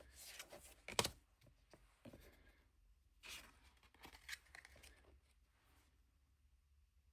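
Tarot cards being handled and flipped through: several short rustling and sliding bursts of card stock, with one sharp tap about a second in.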